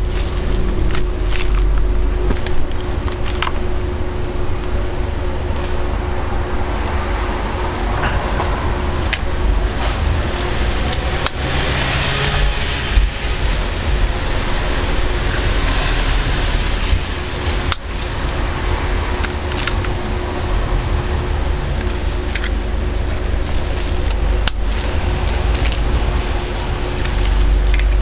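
Street-stall cooking ambience: scattered metal clinks and taps over a steady hum and a low traffic rumble. A hiss rises and fades about halfway through.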